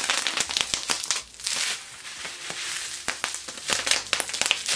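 Clear plastic bubble wrap being scrunched and twisted in the hands, crinkling with many sharp crackles.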